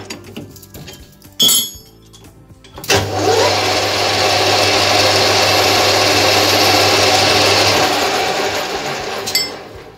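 Small metal lathe switched on: a few clicks and a sharp metal knock, then about three seconds in the motor and three-jaw chuck spin up with a short rising whine and run steadily with a low motor hum. The motor is switched off about eight seconds in and the chuck winds down.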